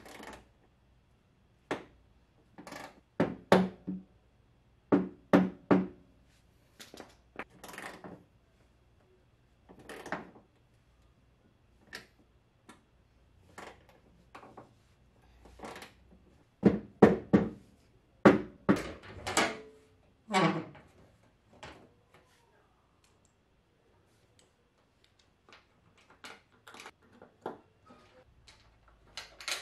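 Hand tools knocking and clanking on the metal side-skirt mounting bracket under a car's door sill while the bracket is being adjusted. The knocks come in irregular clusters, loudest about three seconds in, about five seconds in, and again from about seventeen to twenty seconds in.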